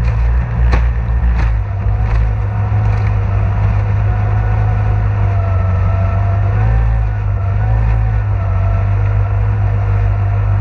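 Racing outboard motor on a stock outboard hydroplane running at low speed, a steady low rumble. There are a few sharp knocks in the first three seconds, and a fainter wavering whine joins about five seconds in.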